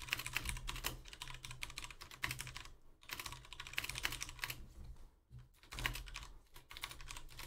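Typing on a computer keyboard: quick runs of key clicks, with short breaks about three seconds in and again a little after five seconds.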